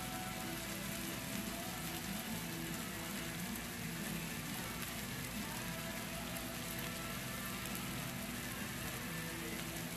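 T-bone steaks sizzling on a griddle: a steady frying hiss.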